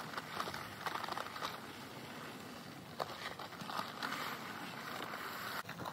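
Dry bagged concrete mix pouring from a paper sack into a post hole with a gritty hiss and crackle, while a long-handled tool scrapes and jabs in the hole. The pouring and scraping come in uneven spurts.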